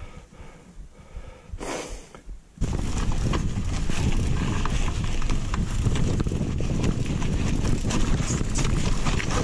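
Mountain bike riding over a rough trail: wind buffeting the microphone, with the rattle and knocks of the bike over the ground. It cuts in suddenly a little over two seconds in, after a quieter stretch.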